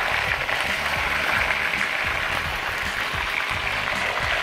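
Chicken pieces sizzling steadily as they sear in ghee in a frying pan, browned on the skin side.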